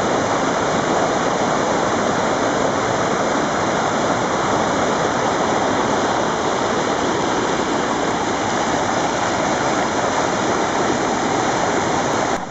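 Rushing water of a steep mountain torrent pouring over boulders and small cascades, a loud, steady rush of white water.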